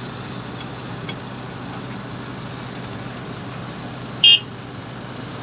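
Steady running of heavy diesel machinery with a low hum, cut once about four seconds in by a short, loud, high-pitched beep.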